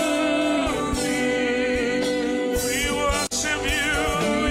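Live slow gospel worship song: sustained chords under a male lead singer and a female backing singer holding long notes, the voices wavering with vibrato in the second half. A momentary dropout in the audio about three seconds in.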